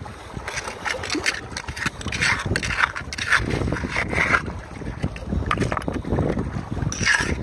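Metal hand trowel digging into wet, rocky gravel and tipping it into a plastic gold pan: an irregular run of gritty scrapes and short knocks of metal on stone.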